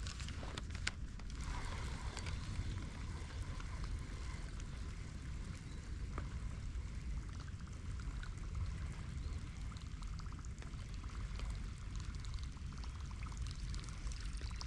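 Steady rain falling: a constant fine hiss of drops with a low rumble underneath. A couple of sharp clicks come about a second in.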